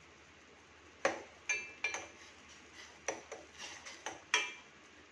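A metal spoon clinking and knocking against a cooking pot: about eight irregular strikes between one and four and a half seconds in, each with a short ring.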